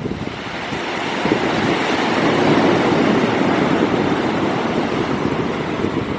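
A sea wave breaking and washing up a pebble beach, the surf building for about two seconds, peaking mid-way and then easing off, with wind buffeting the microphone underneath.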